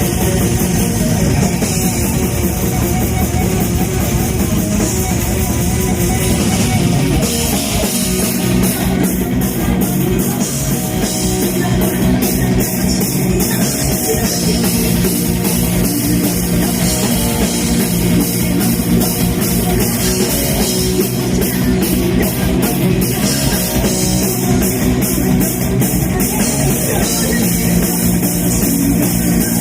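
A metal band playing live and loud: distorted electric guitars, bass and a drum kit. The drum pattern changes and the band's sound shifts about seven seconds in.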